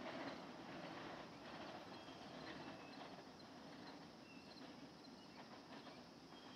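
Faint rumble and clicking of a 1940s PCC streetcar's wheels on the rails as it rolls away, slowly fading.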